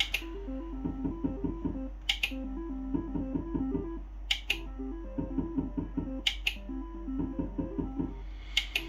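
Merkur Hot Frootastic slot machine's reel-spin tune: a short plucked-note melody that starts over about every two seconds, each new spin marked by a sharp click, over a steady low hum. The spins pay nothing.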